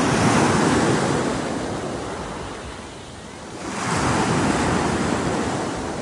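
Wind buffeting the microphone outdoors: a rushing noise that swells in two long gusts, the second coming about four seconds in.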